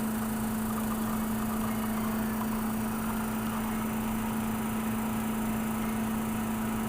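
La Marzocco espresso machine's pump running with a steady, constant hum while pulling an espresso shot.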